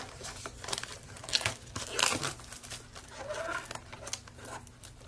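Cellophane shrink-wrap on a trading-card booster box crinkling and tearing under gloved fingers as it is picked open, in irregular crackles with louder rips about one and a half and two seconds in.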